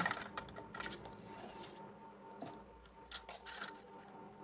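Thin plastic soft-drink bottle crackling and clicking as it is handled and cut apart with a hot soldering-iron blade: a sharp plastic snap right at the start, the loudest sound, then scattered lighter clicks.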